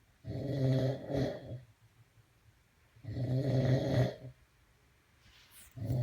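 A sleeping man snoring: loud, droning snores about every three seconds, two full ones and a third starting near the end.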